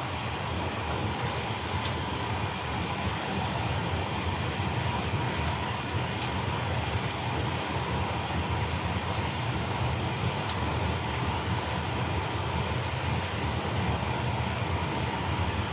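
Steady machinery and airflow drone on a Boeing 777 flight deck while its systems run for ground functional checks, with a strong low hum and a faint steady tone above it. A few faint ticks come through.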